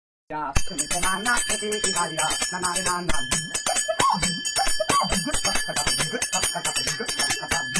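Small handheld metal percussion instrument struck rapidly in time, each stroke a sharp metallic click with a lingering high ring, under a man singing. The singing is strongest in the first three seconds.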